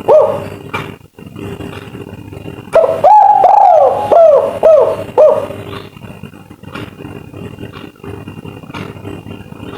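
Spotted dove of the 'kuk 3' song type cooing one phrase a few seconds in: a long first coo followed by several short falling coos. Under it is a steady low background with a few clicks.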